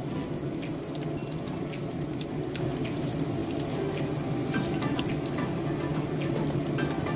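Oil sizzling and crackling steadily as shrimp-stuffed tofu pieces (tahu walik) deep-fry in a pan, with many small pops.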